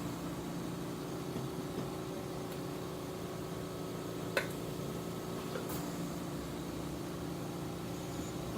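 Steady low mechanical hum, with a single light clink about four seconds in.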